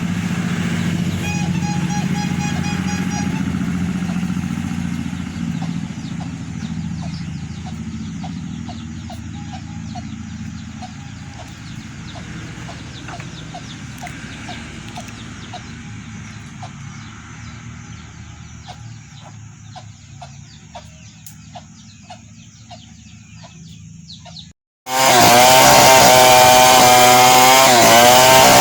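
A low engine hum fades slowly over about twenty seconds, with a run of short, evenly spaced chirps over it. Then, after a sudden cut near the end, a chainsaw runs loud at high revs, its pitch dipping and recovering as it cuts into wood.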